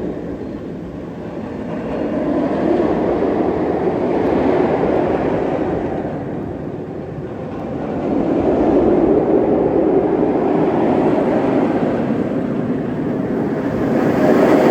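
Roller coaster train running along its steel track: a rumbling rush of wheels and wind that rises and falls in waves.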